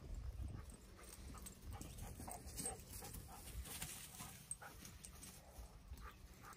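Horse grazing close by, tearing and chewing grass in short crackling clicks, over a low wind rumble on the microphone.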